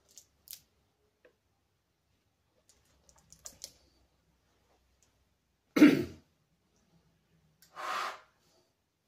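A few faint clicks as the cornet is handled, then a man clears his throat once, loudly, about six seconds in. Near the end comes a short breath as he brings the cornet's mouthpiece to his lips to play.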